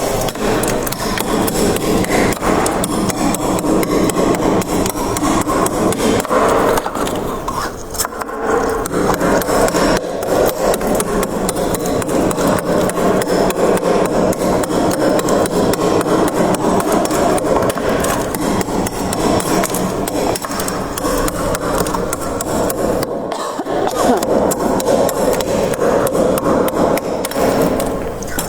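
Freezer frost crunching close to the microphone: a fast, dense run of crisp cracks that barely lets up, dipping briefly twice.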